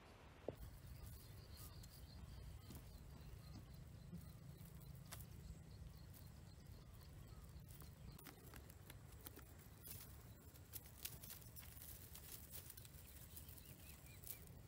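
Faint rustling and scattered small clicks of a nylon cast net being handled on dry grass, over a low steady rumble; near silence otherwise.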